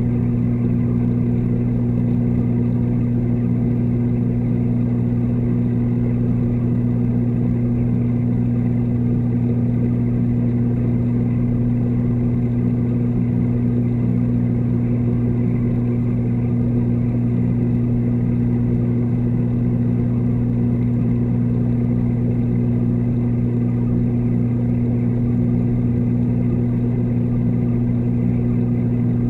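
Steady, even mechanical hum of reef-aquarium water pumps, heard from underwater inside the tank.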